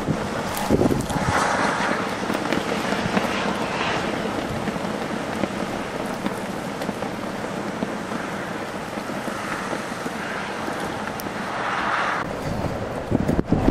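Storm-force wind blowing hard in gusts, swelling a couple of times, with wind buffeting the microphone in low thumps near the end.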